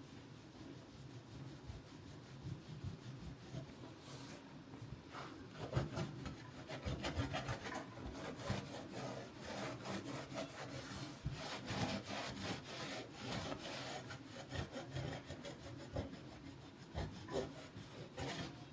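Repeated rubbing strokes, a dense run of short scrapes starting about five seconds in and going on until near the end.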